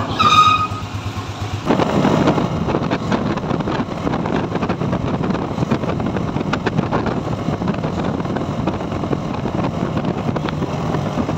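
A brief metallic squeak as a sliding door bolt is worked. Then, from about two seconds in, a small motorcycle's engine runs steadily as it is ridden along a road.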